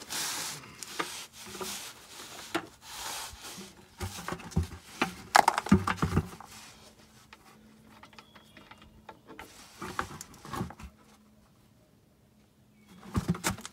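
Plastic five-gallon buckets being moved and pressed up under a truck's oil pan during an oil drain: a run of knocks, scrapes and rubs, loudest about five to six seconds in, then quieter toward the end.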